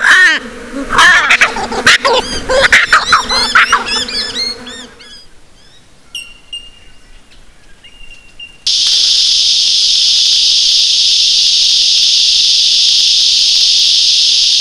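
Laughing kookaburras in a loud cackling chorus mixed with the drawn-out calls of Australian ravens, fading out after about five seconds into a few faint high chirps. About nine seconds in, a loud steady high-pitched buzz of cicadas starts and holds.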